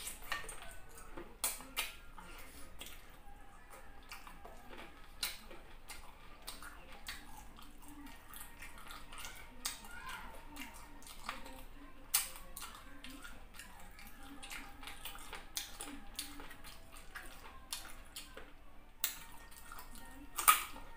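Close-up eating sounds of a hand-eaten meal of fufu and chicken in sauce: wet chewing and mouth smacking with many short sharp clicks throughout, and one loud sharp bite near the end as a carrot is bitten.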